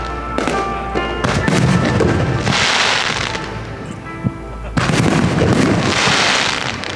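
Fireworks going off over background music: sudden booms about a second in and again just before five seconds, and waves of crackling from the bursts around three and six seconds in.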